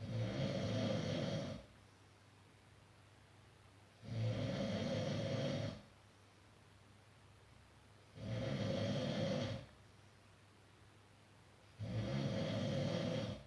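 A person snoring: four snores about four seconds apart, each lasting about a second and a half, over a low steady hum.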